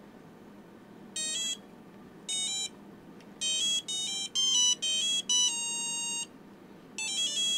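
GRA & AFCH nixie clock's built-in buzzer playing a beeping electronic tune as it powers up: two short groups of notes about a second and two seconds in, a quick run of notes from about three and a half seconds ending on one longer held note, then another quick run near the end.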